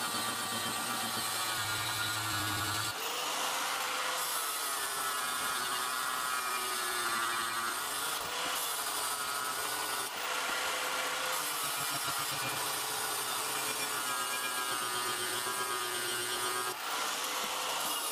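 Angle grinder with an abrasive disc grinding rust off a steel axe head. The motor's pitch wavers up and down as the disc is pressed on and eased off, and the sound shifts abruptly several times.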